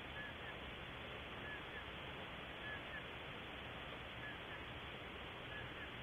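Steady hiss from a live nest-cam microphone, with faint short bird chirps, often in pairs, repeating about every second or so.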